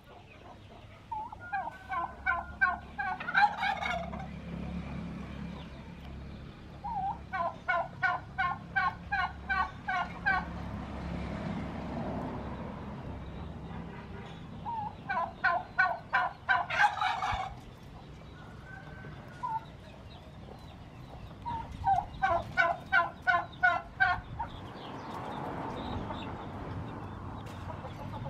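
Male domestic turkey gobbling four times, each gobble a quick run of about eight to ten notes lasting two to three seconds, roughly seven seconds apart.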